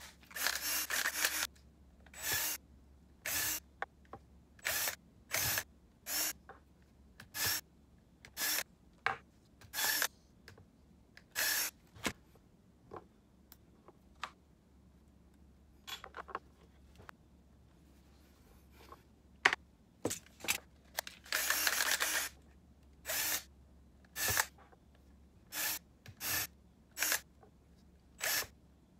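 DeWalt cordless drill/driver driving screws into plastic parts, sped up four times, so each screw becomes a brief high whir. The whirs come roughly one a second, with a quiet stretch in the middle and two longer runs, one at the start and one about two-thirds of the way in.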